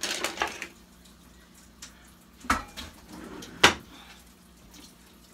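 Cookware and a spoon being handled: a few light clinks, then two sharp knocks about two and a half and three and a half seconds in, the second the loudest.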